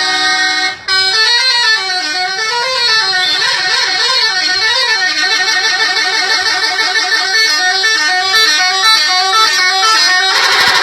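Bus telolet horn, a multi-tone musical horn, playing loudly: a held chord for about a second, a brief cut, then a warbling tune that slides up and down in pitch. Near the end it switches to a different, fuller chord.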